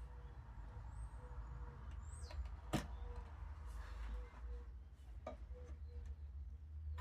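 A few sharp knocks over a steady low hum, the loudest about three seconds in, with two faint short high chirps about one and two seconds in.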